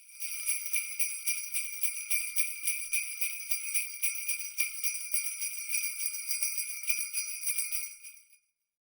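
Jingle bells shaken steadily in quick, even strokes, a bright high jingling that fades out shortly before the end.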